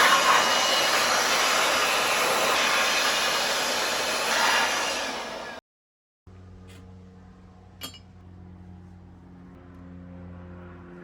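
Aerosol brake cleaner spraying in one long, loud, continuous hiss that stops abruptly after about five and a half seconds, then a quiet steady hum with a single click near the end.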